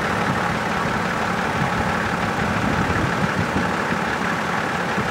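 Off-road 4x4 vehicle's engine running steadily.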